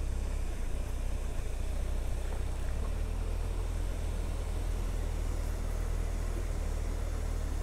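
Suzuki Hayabusa motorcycle's inline-four engine running at a slow crawl, a steady low rumble that shifts slightly about three seconds in, under an even rushing hiss.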